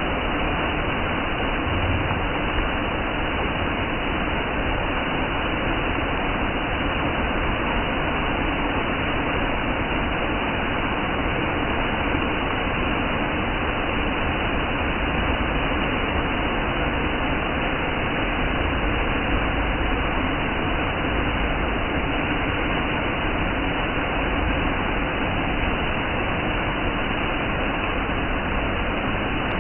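Waterfall rushing: a loud, steady roar of falling water with no change.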